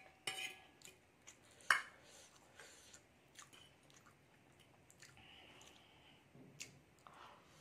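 Close-up eating sounds: chewing, with a metal fork clinking and scraping on a glass plate while twirling noodles. The sharpest clink comes about two seconds in.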